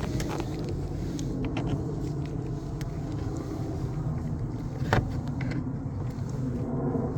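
A plastic interior trim panel being worked loose, with light clicks and one sharp snap about five seconds in as a clip lets go, over a steady low rumble.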